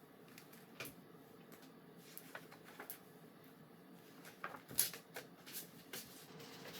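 Faint handling noises of a picture book as its cover and pages are turned: scattered light clicks and rustles, the loudest a little under five seconds in.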